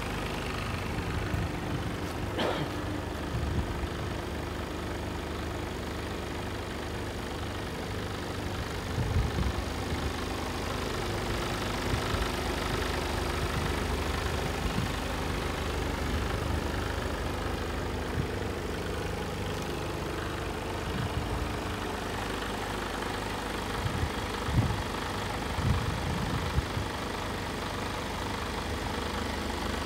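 Mercedes Actros 2545's straight-six diesel engine idling steadily, with a few soft low thumps along the way.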